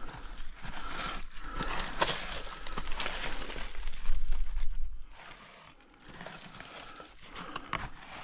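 Rustling and crackling of dry brush and tree roots being handled, with a few sharp snaps. It is loudest about four to five seconds in, then quieter.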